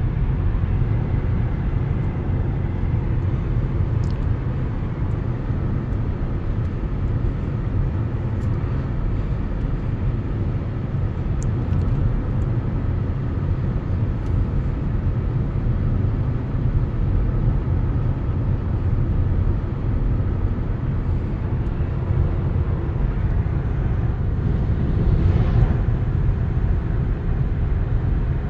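Volkswagen Passat B7 driving: a steady low rumble of engine and tyres on the road, with a brief swell of noise about twenty-five seconds in.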